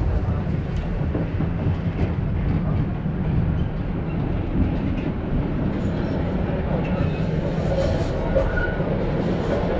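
Tram running along its track, heard from inside the car: a steady low rumble.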